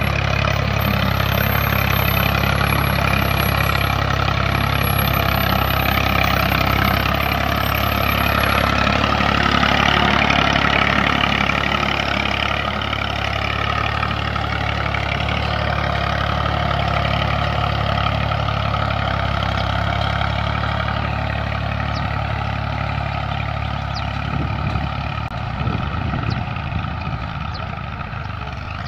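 Massey Ferguson 240 tractor's three-cylinder diesel engine running steadily under load as it pulls a spring-tine cultivator through dry soil, growing slightly fainter toward the end as the tractor moves away.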